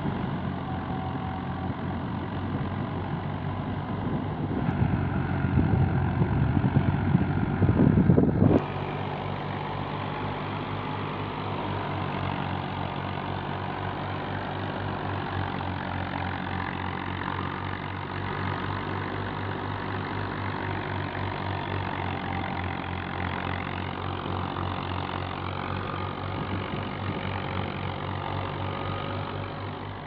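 Fiat 480 tractor's three-cylinder diesel engine running steadily, driving a wheat thresher through its shaft, with the thresher's rushing noise mixed in. A louder rushing stretch between about four and eight seconds in cuts off suddenly.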